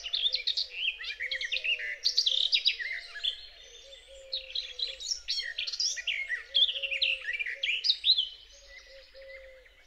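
Garden warbler singing two long, rapid, mellow warbling phrases with a short pause between them. A faint, wavering man-made electro-mechanical hum runs underneath.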